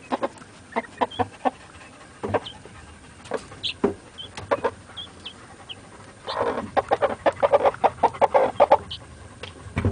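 Black Australorp hen clucking in a quick run of short low clucks in the second half, with scattered short high peeps from young birds, Muscovy ducklings or guinea keets, through the rest.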